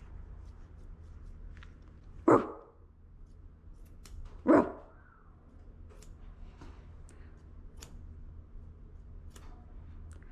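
Shih Tzu puppy giving two short barks about two seconds apart.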